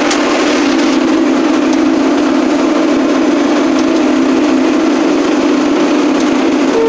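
Case 480D backhoe's 3.1-litre three-cylinder diesel running steadily while still cold after a 0°F start.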